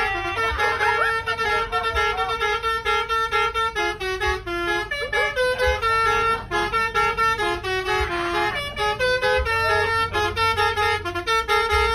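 Bus telolet horn, a multi-tone air horn, playing a melody of held notes that step up and down in pitch.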